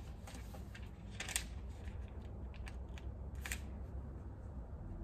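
Paper pages of a book being turned, a few short crisp rustles, the loudest about a second and a half in and another about three and a half seconds in, over a low steady room hum.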